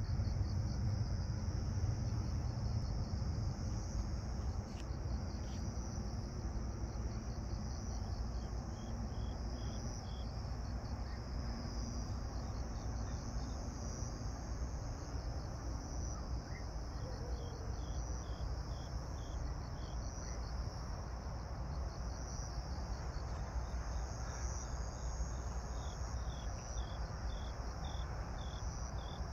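Grass insects chirping: a steady high, shrill trill, with another insect calling now and then in short runs of quick pulses. Beneath them is the low rumble of a jet airliner climbing overhead, strongest at the start and slowly fading.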